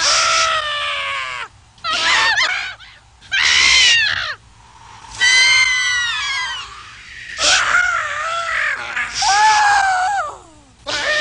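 High-pitched cartoon voice screaming and wailing: about six separate cries that swoop up and down in pitch, with short pauses between them.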